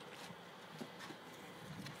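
A few faint, scattered taps and clicks over low outdoor background noise.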